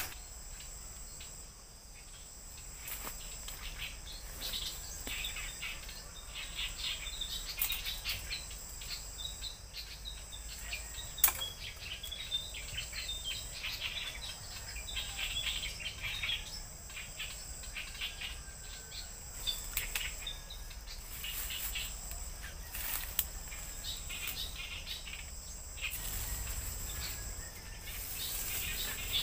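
Woodland ambience: many small birds chirping and calling, over a steady high drone of insects. One sharp click about eleven seconds in.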